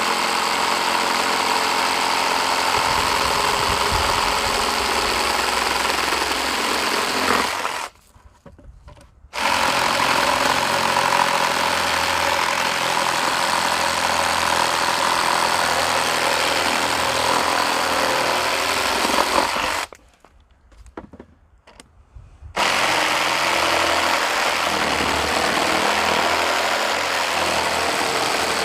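Meterk 20V cordless reciprocating saw cutting through wood with its orbital action on, running steadily. It stops briefly twice, about eight seconds in and again about twenty seconds in, then starts up again.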